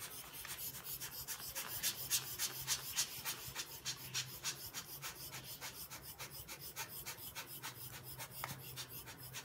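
A hand-twisted tool rubbing and scraping against an acrylic piece in short, repeated strokes, about three to four a second, over a steady low hum.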